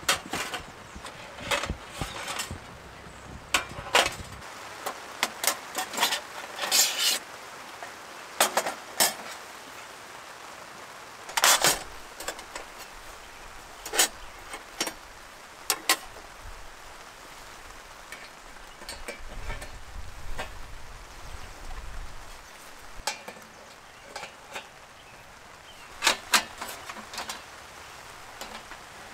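Irregular clinks, knocks and short scrapes of hard camp gear or cookware being handled, over a steady background hiss. There is a dull low rumble around the middle.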